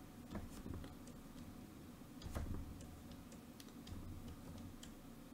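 Faint, irregular clicks and taps of a stylus on a drawing tablet while short arrows are drawn, over a low background hum.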